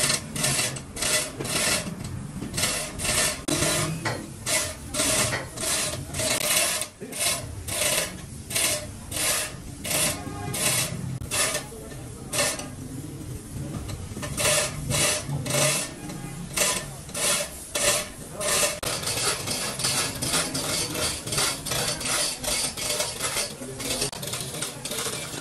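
Hand filing or rasping: repeated back-and-forth scraping strokes, about two a second, that turn quicker and closer together about three quarters of the way through.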